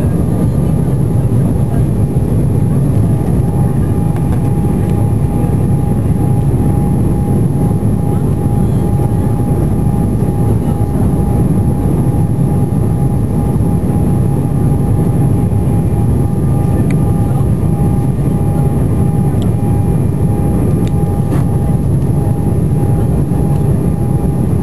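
Jet airliner's engines and airflow heard from inside the passenger cabin during the climb after takeoff: a loud, steady rumble with a thin, steady whine above it.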